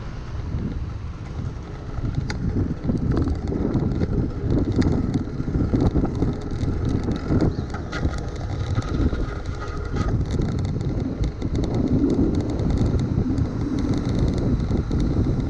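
Fixed-gear bicycle riding on a wet road: steady rushing noise of tyres and wind buffeting the microphone, with many scattered sharp ticks.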